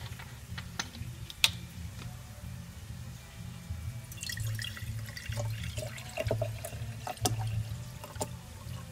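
Drink poured from a bottle into a glass mason-jar mug, splashing into the liquid already in it from about four seconds in. A single sharp click comes about a second and a half in.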